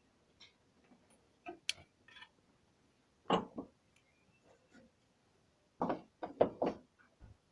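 Scattered light clicks and knocks from hands working on a bandsaw's wooden guide blocks and parts, with a louder knock a little under halfway and a quick run of four or five knocks near the end.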